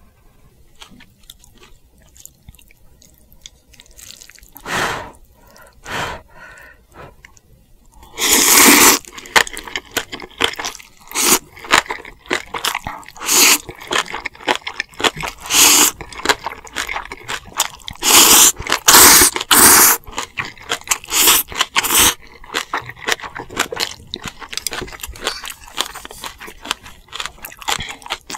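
Close-miked eating sounds: a person chewing and crunching food. The sounds are sparse at first, then come as a dense run of loud bites and mouth noises from about eight seconds in.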